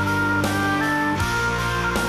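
Music: a melody of held notes changing about every half second over a steady bass line.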